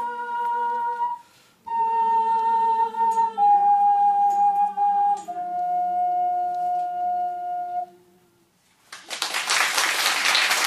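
An ocarina plays the closing phrase of a slow melody, stepping down through long held notes to a final held note, with lower notes sounding beneath. After a short pause the audience breaks into applause near the end.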